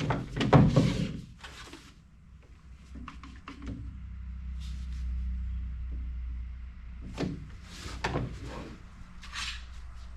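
Workshop handling noises: a loud burst of scraping and knocking in the first second and a half, then a low steady hum, and a few more knocks and scrapes near the end.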